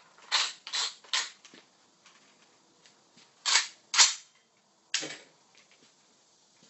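Suppressed Ruger Mini-30 semi-automatic rifle firing supersonic 7.62x39 ammunition: six sharp shots, three in quick succession, then a pause, two more, and a last one about a second later. Suppressed but still quite quiet for high-velocity rounds.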